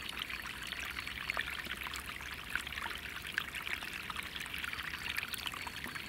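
Snowmelt water rushing fast along a channel in road ice, a steady gurgling rush with many tiny pops, a sound like the sea.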